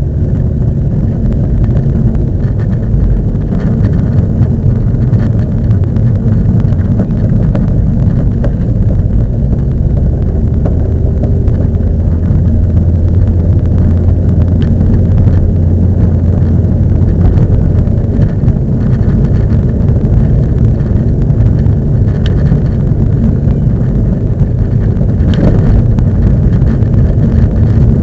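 Car driving with a steady low road-and-engine rumble and repeated short knocks from the coilover suspension, one louder knock near the end. The knocking is the coilovers' abnormal noise, which the owner takes as a sign they may be due for replacement.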